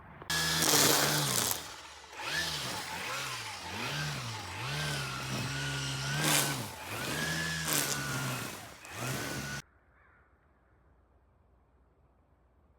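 An engine revving up and down over and over, its pitch rising and falling in quick swells, then cutting off suddenly near the end.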